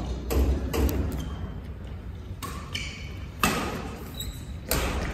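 Badminton doubles rally on an indoor court: several sharp racket hits on the shuttlecock and footfalls, echoing in a large hall, with short shoe squeaks on the court floor between them.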